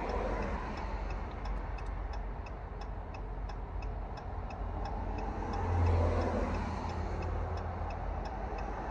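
Dodge Charger's engine idling with a steady low hum that swells briefly about six seconds in, heard from inside the cabin, while the indicator flasher ticks evenly about two and a half times a second.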